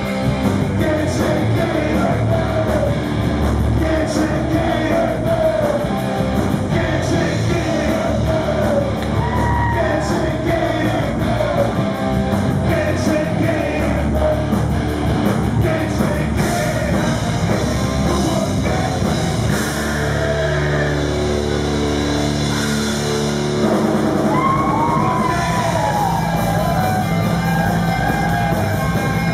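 Live rock band playing loud: electric guitars and drums with a male lead singer. About twenty seconds in the voice drops out for a few seconds of guitar, then the singing comes back.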